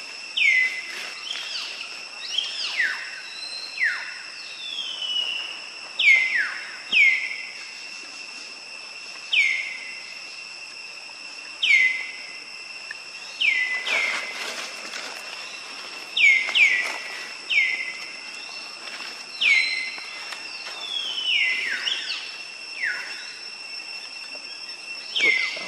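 Repeated short, high animal calls, each dropping sharply in pitch and then levelling off, coming every one to three seconds over a steady high-pitched drone.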